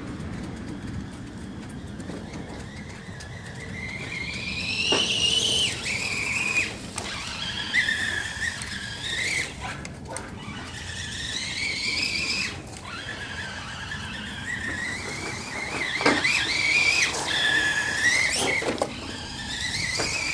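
RC truck's Titan 550 12-turn brushed electric motor whining through its gears, the pitch rising as it speeds up and falling as it backs off, in several bursts. A few sharp knocks come in between.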